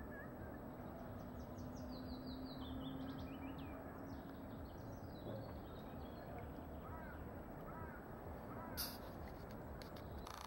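Faint outdoor reedbed sound: a small songbird sings one descending run of short high notes starting about a second in, and a few short calls come about seven seconds in, over a low hiss and a steady low hum that fades out about eight seconds in. A single sharp click comes near the end.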